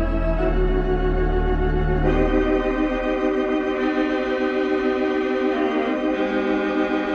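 Silent-film accompaniment played on an organ: slow, held chords. The chord changes about two seconds in, and the low bass notes drop out soon after.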